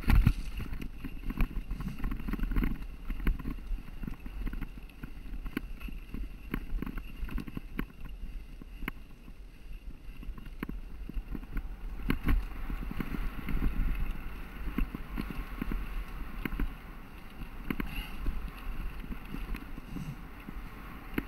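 Mountain bike riding fast down a rough dirt singletrack: a steady low rumble of tyres on the trail, broken by frequent rattles and knocks as the bike hits bumps, with the sharpest knocks just after the start and about twelve seconds in.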